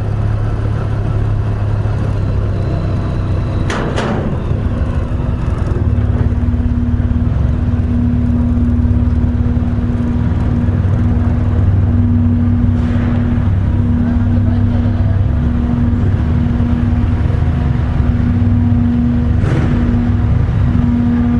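Honda VFR1200X's V4 engine running at low speed as the motorcycle rides slowly up a steel ferry ramp and onto the vehicle deck. A steady hum joins in a few seconds in and continues.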